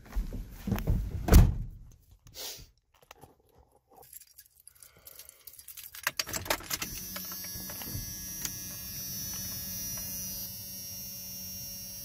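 A heavy thump about a second in, then keys rattling. About six seconds in the ignition key on the steering column is turned, and the first-generation Dodge's 5.9-litre 12-valve Cummins inline-six diesel catches and settles into a steady idle.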